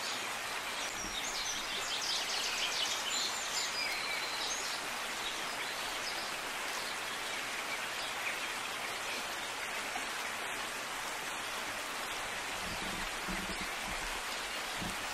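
Steady outdoor background hiss, with birds chirping briefly in the first few seconds. A few soft low thuds come near the end.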